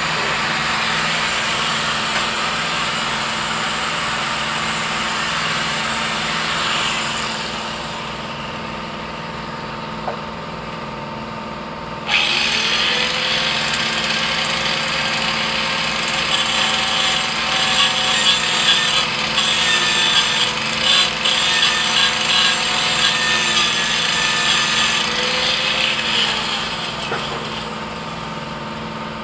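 Electric angle grinder grinding the steel frame of a garden tractor. After steady grinding it eases off for a few seconds. About twelve seconds in it spins up again and bites into the metal in uneven surges, then winds down near the end.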